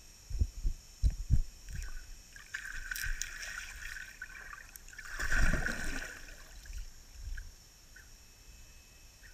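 Muffled water sounds through a submerged GoPro housing: four low knocks in the first second and a half, then swells of rushing water, the loudest about five and a half seconds in, dying away near the end.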